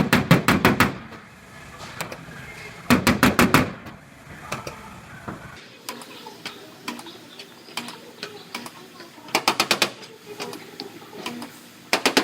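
Rapid runs of tapping on a Dodge Ram's steel bedside panel as the dent is worked out, about a dozen quick strikes a second in bursts of about a second, four times.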